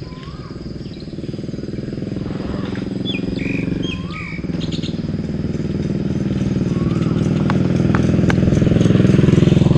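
Small motorcycle engine running and growing steadily louder as it approaches. A bird's short rising-and-falling whistled call repeats a few times over it.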